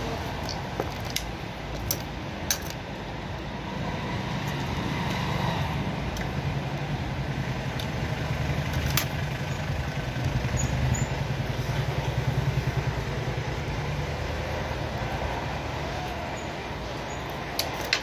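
A steady low engine rumble of motor traffic, swelling in the middle, with a few sharp clicks of a screwdriver working the terminal screws of a plastic power socket.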